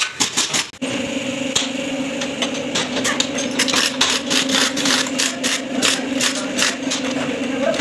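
Rapid clicking, then a motor starts suddenly about a second in and runs with a steady hum, with irregular clicks and taps continuing over it.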